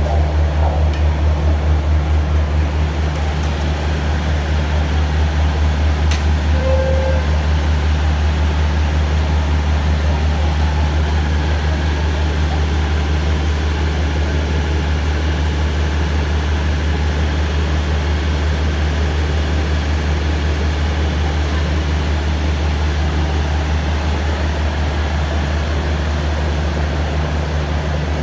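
Diesel passenger train at a station platform, its engine running with a steady low drone.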